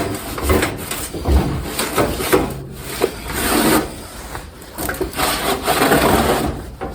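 A towel rubbing and scrubbing around the base of a kerosene heater in uneven back-and-forth strokes, with a light bump or two.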